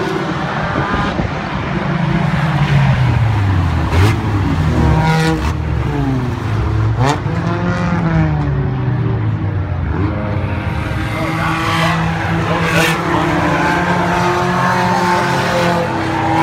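Several Thunderstock-class stock cars racing on a dirt oval, their engines running hard together, each engine's pitch rising and falling as the cars accelerate and lift around the track.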